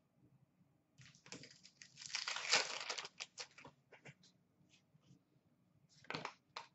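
Hands handling a pack of hockey trading cards: a burst of crinkling and rapid clicks starts about a second in and lasts a couple of seconds, then scattered light ticks, and two more clicks near the end.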